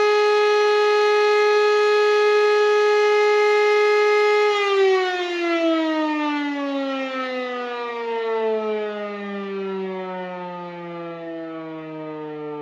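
E57 electro-mechanical siren sounding the fire-alarm signal: it holds one steady, loud tone, and about four and a half seconds in it is switched off and winds down, its pitch falling steadily and its sound fading as the rotor slows.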